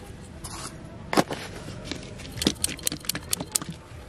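A series of sharp clicks and light clinks: one loud click about a second in, then a quick irregular run of them through the middle, like small hard objects knocking while things are handled.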